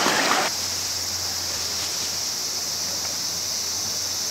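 Steady outdoor ambience: an even high-pitched hiss with a faint low hum underneath. A broader rushing-water noise drops away about half a second in.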